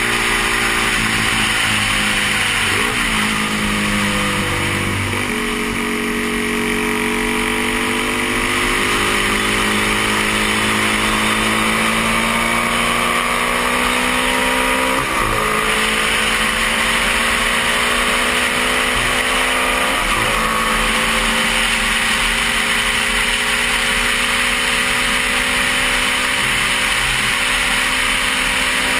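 1972 Honda CB350's parallel-twin engine pulling hard at race speed, heard from the rider's helmet camera. Its pitch climbs slowly over long stretches and breaks sharply a few times: about three seconds in, just past halfway, and around two-thirds through.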